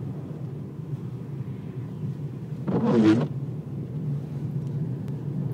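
Steady low rumble of a Fiat car driving on a snow-covered road, heard from inside the cabin. About three seconds in comes one brief, loud human vocal sound.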